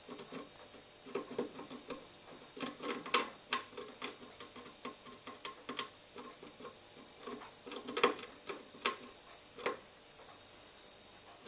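Chinchilla gnawing on its wooden house: irregular sharp clicks and scrapes of teeth on wood, coming in small clusters.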